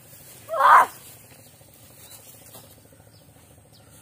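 A single short, loud shout from a person about half a second in, its pitch rising and then falling; otherwise only a low outdoor background.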